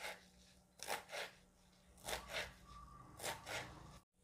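Kitchen knife slicing through a bunch of radish leaves onto a wooden cutting board: about seven short, crisp cuts, several in quick pairs.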